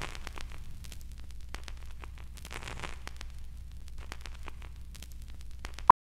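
Old-film countdown sound effect: crackle and hiss over a low hum, with scattered clicks and pops. Near the end comes one short, loud beep, the cue mark that closes the film leader.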